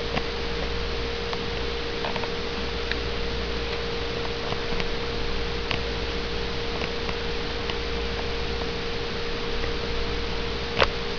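A steady hum with one constant mid-pitched tone over an even hiss, with a few faint ticks and a sharp click near the end.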